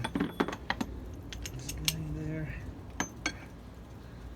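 Steel adapters and cups of a ball joint press kit being handled and fitted, a series of sharp metal clinks and knocks.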